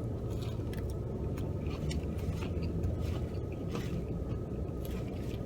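Soft chewing and small mouth clicks while eating fried chicken, over a steady low hum inside a car.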